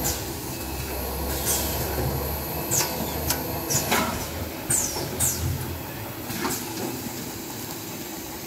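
Steady mechanical din and hiss of factory machinery running, with sharp crackles and short squeaks over it. The low rumble eases off about six seconds in.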